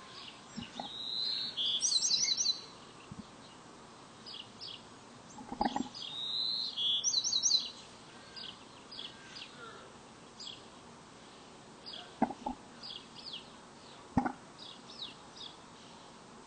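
Black-capped chickadee calls: two louder bursts, each a sliding note then a quick run of notes, over many short high chirps throughout, with a few sharp knocks in between.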